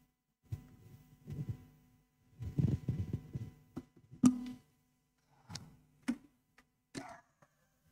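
Faint muffled footsteps and handling thumps, then a few sharp clicks as the lectern microphone is picked up and handled, over a faint steady hum.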